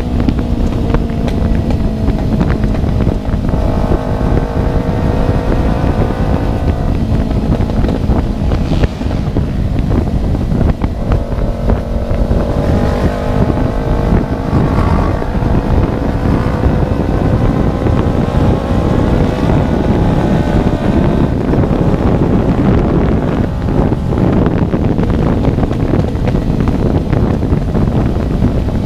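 Kawasaki Ninja 250Fi parallel-twin engine running with no exhaust fitted, under way, its revs climbing and dropping several times as it pulls through the gears. Wind buffets the microphone throughout.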